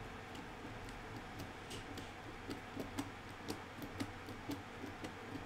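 Light clicking from a screwdriver turning titanium screws into a folding knife, irregular at first, then about two clicks a second.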